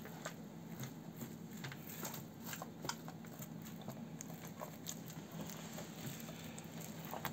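Light scratchy clicks and rustles of a paper napkin wiping out a gutted pike, over a steady low hum.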